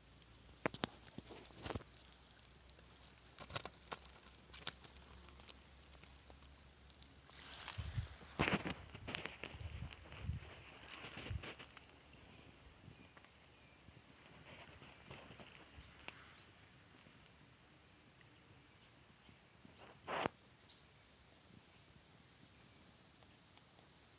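Steady high-pitched chorus of insects, growing louder about a third of the way in, with a few soft knocks and rustles in between.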